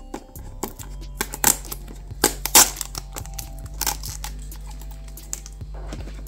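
A thin blade slitting the paper seal on a cardboard box: a string of sharp, scratchy rasps and crackles, loudest in the middle, with a low steady hum underneath.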